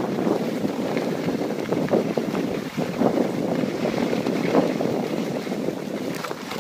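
Wind rushing over the microphone together with skis sliding and scraping on groomed snow, skiing downhill.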